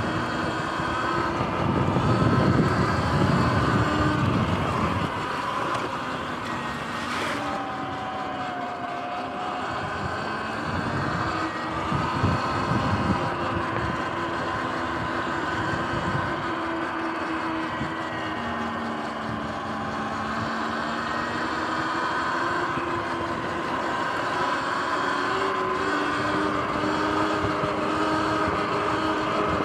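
Sur-Ron X electric dirt bike's motor and drivetrain whining, the pitch rising and falling with speed, over wind rushing across the microphone, which is loudest a couple of seconds in. There is a single sharp knock about seven seconds in.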